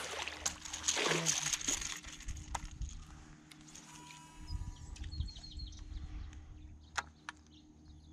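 A hooked bass splashing and thrashing at the water's surface as it is reeled toward the boat, loudest in the first two seconds. After that come quieter sloshing and a few sharp clicks, the loudest about seven seconds in.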